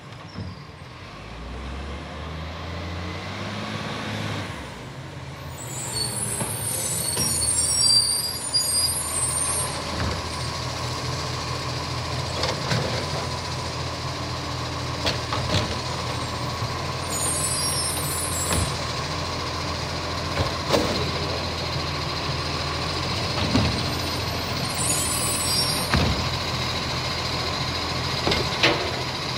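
Iveco side-loader garbage truck drawing up with its diesel engine running and growing louder, then idling while its automated side arm lifts and tips wheelie bins into the hopper. Air brakes hiss three times, a steady whine sits over the engine, and scattered clunks and thuds come from the bins and arm.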